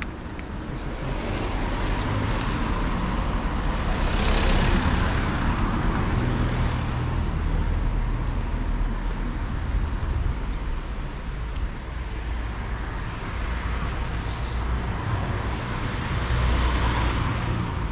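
Road traffic: vehicles passing on a wet road, their tyre hiss swelling and fading twice, about four seconds in and again near the end, over a steady low rumble.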